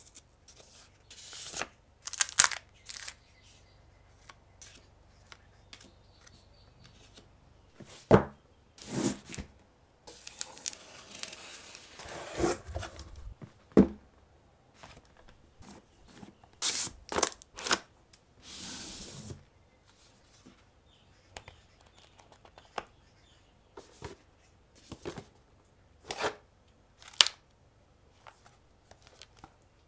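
Paper and cardboard packaging handled and opened by hand: scattered taps, clicks and short rustles, with a longer stretch of paper rustling about a third of the way in.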